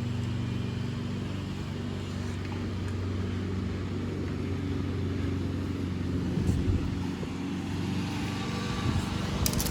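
A steady low mechanical hum, like a running engine or motor, with a few light clicks near the end.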